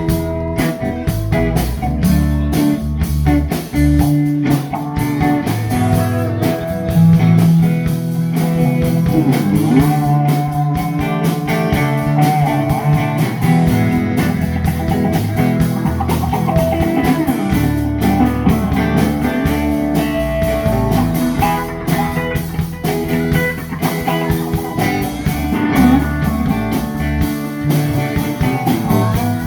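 Blues-rock music: an instrumental passage led by guitar, with bending notes, over bass and drums.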